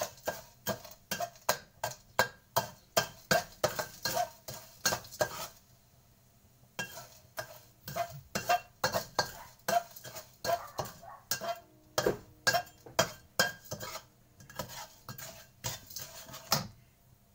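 A metal spoon scraping and clinking against a wok, about two strokes a second, as sugar is stirred in a little oil to melt it. The strokes stop for about a second partway through, then resume and stop shortly before the end.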